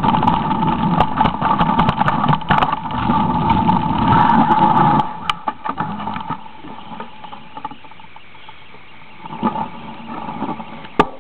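Mountain bike riding fast over a dirt singletrack, heard as a loud, steady rattling rumble through a camera carried on the ride. About five seconds in it stops abruptly, leaving a quiet background with scattered light clicks and knocks.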